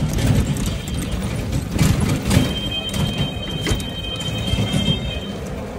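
Cycle rickshaw rattling and knocking as it rides over a rough dirt lane. A thin, steady high tone joins about halfway through and stops shortly before the end.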